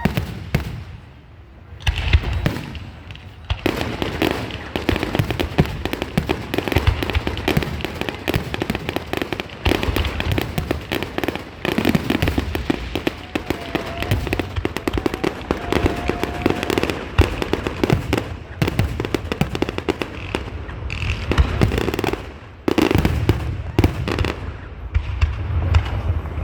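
Fireworks display going off without a break: dense, rapid crackling and popping mixed with heavier booms. There is a short lull about a second in and another about twenty-two seconds in.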